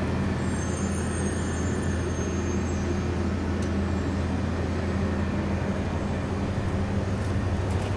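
Steady hum of street traffic and a running vehicle engine, low and even throughout, with a faint high-pitched squeal from about half a second to two seconds in.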